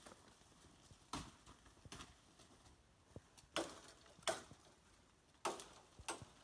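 Footsteps crunching on dry leaf litter as a person walks through dense forest undergrowth, with leaves and twigs brushing past. About six irregular steps, the loudest a little over halfway through.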